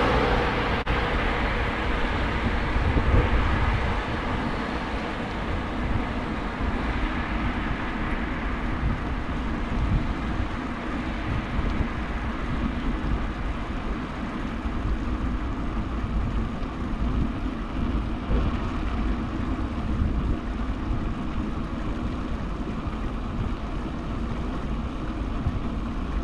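Steady rolling and wind noise from a bicycle riding on an asphalt road, with a fluctuating low rumble. A car passes close at the start, its noise fading over the first few seconds.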